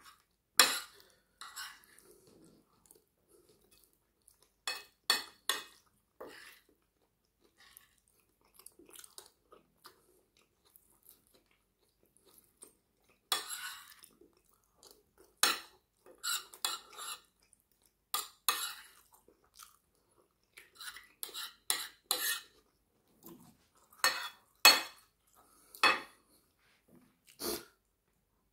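A metal spoon clinking and scraping against a plate as curry and rice are scooped up, in short, sharp, irregular strikes, some coming two or three in quick succession. Quiet chewing fills the gaps between.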